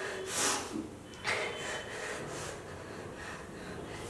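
Two short, noisy breaths from a man, the first about half a second in and the second just after a second in, then quiet room tone.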